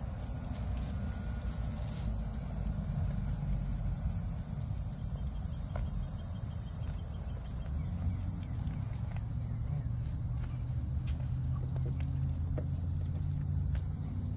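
Goats browsing leaves from cut branches: a few faint clicks of leaves being pulled and chewed over a steady low rumble.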